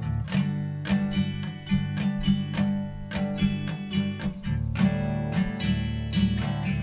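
Background music: an instrumental passage of a pop song with strummed acoustic guitar over a steady bass.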